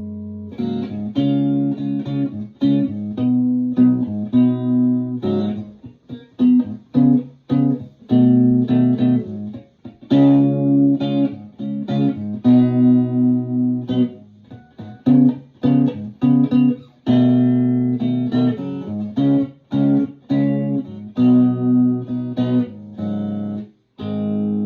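Open-chamber Fender Telecaster electric guitar playing arpeggios in the key of G, one plucked note after another with the notes ringing on, with a few brief pauses between phrases.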